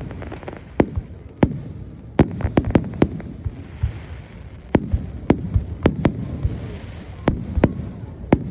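Aerial fireworks display: a quick, irregular string of sharp bangs, more than a dozen, over a continuous low rumble.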